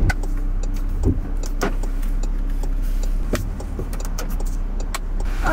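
Steady low road and engine rumble heard inside a moving car, with a few scattered light clicks.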